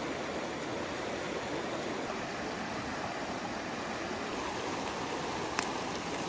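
Fast-running mountain stream rushing steadily, high with snowmelt runoff. A single sharp click about five and a half seconds in.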